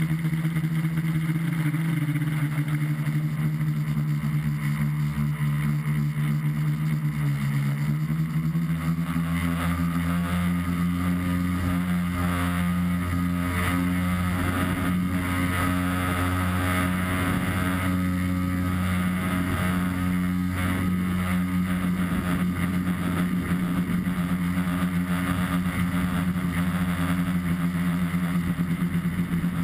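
Electric motors and propellers of an RCExplorer-design tricopter humming steadily, heard from the onboard camera with a hiss of wind over it. About seven seconds in the pitch dips briefly, then rises and holds higher as the throttle goes up for a climb.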